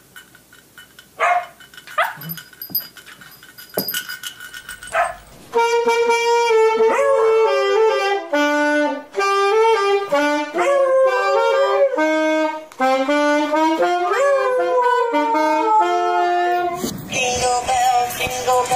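A dog gives several short, sharp yips and barks. Then a saxophone plays a slow melody of held notes that slide between pitches for about ten seconds, followed by music near the end.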